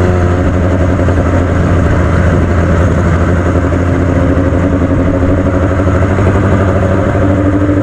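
Yamaha FZ6 Fazer 600's inline-four engine running with a fast, even chopping beat through its note, the 'helicopter noise' it is making. The pitch steps up slightly near the end.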